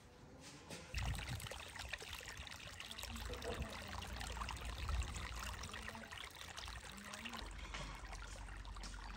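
Water pouring from a large pipe into an earthen irrigation ditch and trickling along the channels, starting about a second in.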